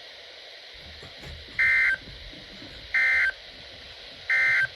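Emergency Alert System SAME end-of-message code: three short, loud bursts of two-tone digital data warble, about a second and a third apart, signalling the end of the warning broadcast. A faint radio hiss lies under and between the bursts.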